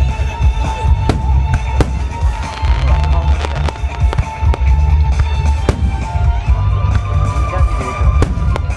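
Aerial fireworks bursting in quick succession, many sharp bangs and crackles several times a second with deep booms, over music that the display is set to.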